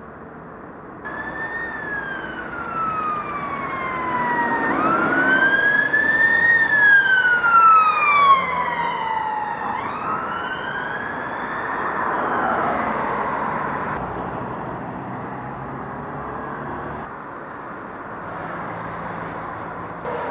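Emergency vehicle siren on a wail, its pitch sweeping slowly up and down, coming in about a second in. It is loudest as the car passes, then fades away over the second half, leaving road traffic noise.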